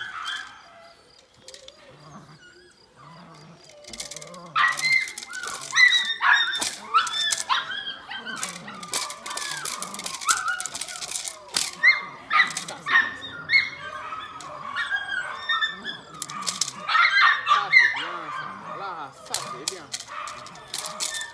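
Malinois puppy yipping and whining in many short, high cries that bend up and down while it bites and tugs on a rag, starting about four seconds in, with sharp clicks and rustles among them.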